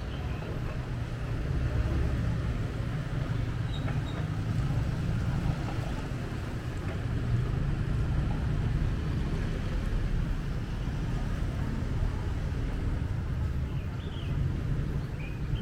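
Street traffic: a steady low rumble of passing vehicles, swelling slightly a couple of seconds in and then holding.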